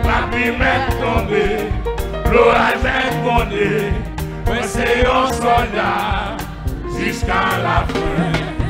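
A live gospel band, with drum kit, conga drums and electric guitars, plays a steady-beat worship song while several voices sing.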